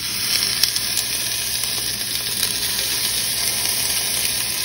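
Marinated pork skewers sizzling on the hot, oiled grill plate of a Ninja Foodi indoor grill: a steady hiss that starts as the meat goes down, with scattered small crackles.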